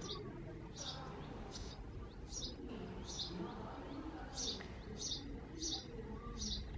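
Male house sparrow chirping from a nest box: a steady, even run of short, high chirps, about one every 0.7 seconds. This is the male's repeated nest-site call.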